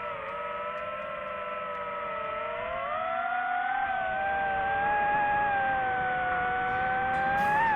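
FPV quadcopter's electric motors running with a high whine, several tones shifting in pitch together with the throttle; the pitch rises about three seconds in, then drops sharply at the end.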